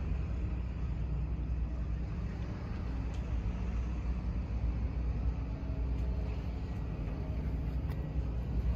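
A diesel truck engine idling steadily, a low, even sound with no change in speed.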